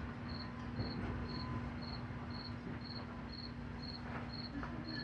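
A cricket chirping steadily, short high chirps about twice a second, over a low steady hum.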